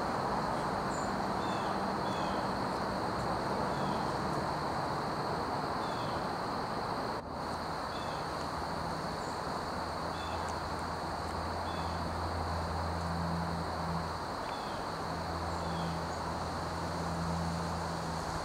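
Outdoor ambience: a steady hiss with a constant high insect-like drone. Faint short bird chips come about once a second, and a low engine-like hum comes and goes in the second half.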